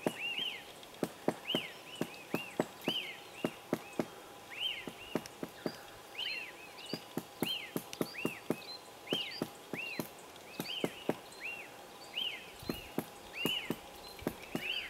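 Magellanic woodpecker pecking at a tree trunk: irregular sharp knocks, at times two or three a second, amid repeated short chirping bird calls and a faint steady tone.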